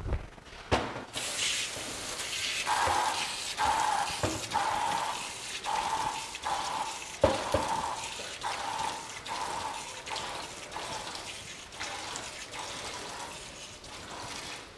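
Kitchen tap running into a sink while a plastic cutting board is washed under it, with a rhythmic rubbing about once a second. A single knock about seven seconds in.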